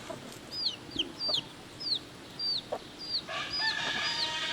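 Baby chicks peeping: a steady run of short, high chirps, each falling in pitch, about two or three a second. About three seconds in, a lower, rougher sound joins the peeping.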